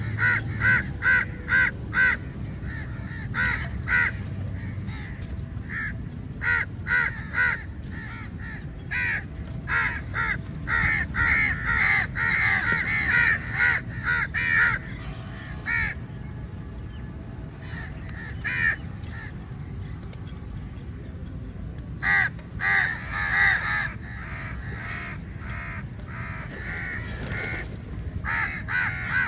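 A flock of crows cawing, many harsh calls overlapping in quick runs, with short lulls between the bursts.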